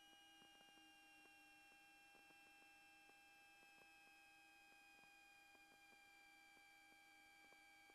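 Near silence: faint steady electrical tones with a whine slowly falling in pitch and scattered faint ticks.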